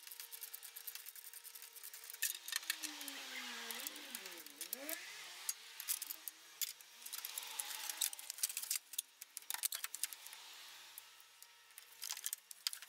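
Scattered clicks, light rattles and rubbing as gloved hands work the electric cooling fan loose from beside the radiator of a Jeep Cherokee XJ, with a faint wavering tone underneath.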